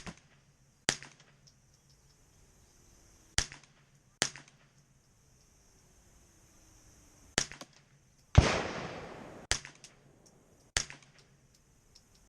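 Winchester Wildcat .22LR semi-automatic rifle firing about seven single shots at uneven gaps, feeding from a Ruger 10/22 magazine. The shot about eight seconds in is the loudest and rings on for nearly a second.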